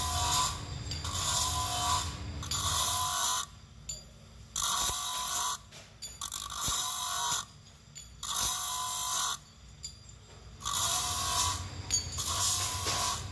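Motor-driven grinding wheel grinding metal motorcycle brake shoe castings held against it: several scraping grinding passes, each a second or so long, broken by short pauses, over the steady hum of the motor.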